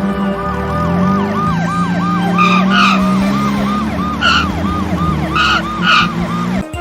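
Siren wailing in a fast repeating rise-and-fall, about three cycles a second, over a low engine-like hum, with several short bright blasts. The sound cuts off abruptly near the end.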